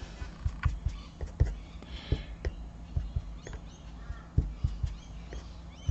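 Foam finger dobber dabbing ink onto paper: soft, irregular taps, about two a second.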